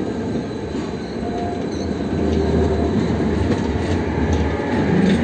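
Electric city tram running alongside the platform at close range: a steady low rumble of wheels and motors that grows louder.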